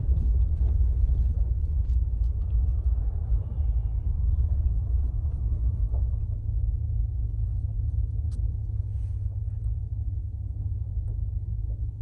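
Low, steady rumble of a car driving, heard from inside the cabin, easing slightly about halfway through.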